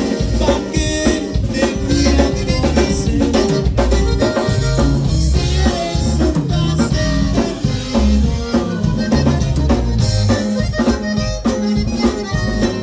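Live conjunto band playing: an accordion carries the melody over a drum kit and a strong, regular low beat.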